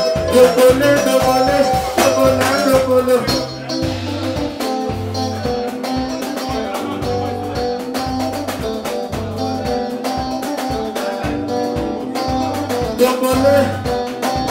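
Live soukous band music: interlocking electric guitar lines over a steadily pulsing bass, with a voice singing near the start and again near the end.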